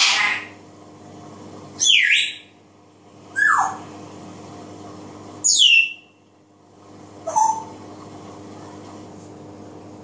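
African grey parrot giving five short calls, most of them whistles falling in pitch.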